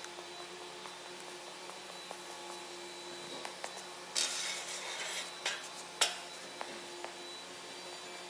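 A hand rubbing along the edge of a stainless steel chair seat for about a second, then a few light clicks and one sharp metallic tap, over a steady background hum.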